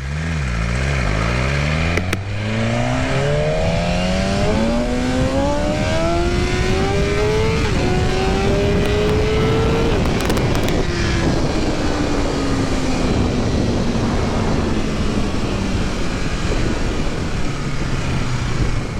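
2021 BMW S1000RR's inline-four engine accelerating hard through the gears: the pitch climbs and drops sharply at three upshifts, then falls away steadily as the throttle is closed and the revs settle low near the end.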